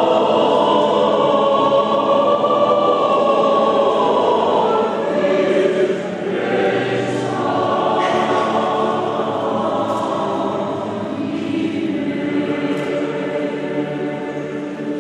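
A choir singing sacred music in long held notes, easing off slightly about six seconds in.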